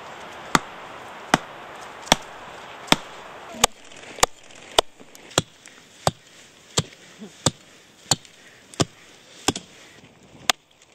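Repeated chopping blows into a tree trunk: a sharp knock about every 0.7 seconds, steady in rhythm, with a hiss behind the first few seconds.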